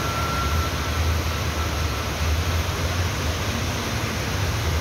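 Steady rush of floodwater running down a city street, with the low rumble of traffic driving through it. The rain has stopped, but the flood runs on.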